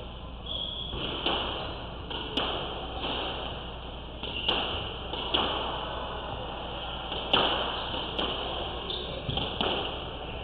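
Squash rally: the rubber ball is struck by rackets and hits the court walls, giving sharp hits roughly once a second, each with a short echo in the enclosed court.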